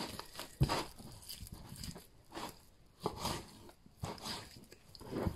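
A knife cutting through a raw lamb leg on a cutting board: about half a dozen irregular wet slicing and tearing strokes, with one sharp knock near the start.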